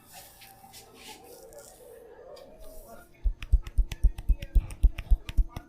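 Hands rapidly and rhythmically slapping a person's head and shoulders in a barber's percussive massage, about five or six strikes a second, starting about three seconds in after a quieter stretch.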